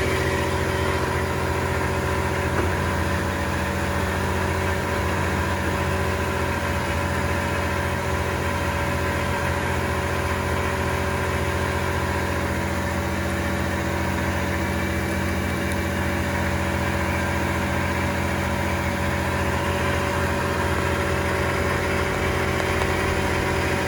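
Femco Durga 25E CNC turning center running under power: a steady machine hum with several fixed tones.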